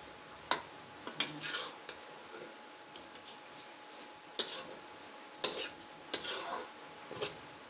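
Metal spatula stirring and scraping gram flour roasting in ghee in a metal kadhai, with rasping scrapes and four sharp clinks of the spatula against the pan. The besan is being roasted through so it is no longer raw.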